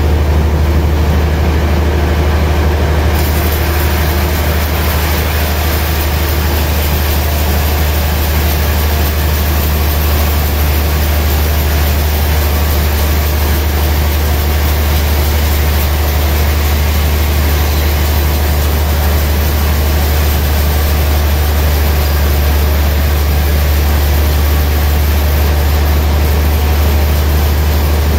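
Large band sawmill running with a steady low hum while its blade cuts lengthwise through a slab of gayam wood; a higher, noisier cutting sound joins in about three seconds in and then holds steady.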